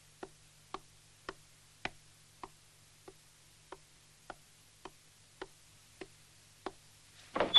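Cartoon footsteps: light, evenly spaced taps, a little under two a second, as a small character walks across a wooden floor. A louder, short rush of noise comes near the end.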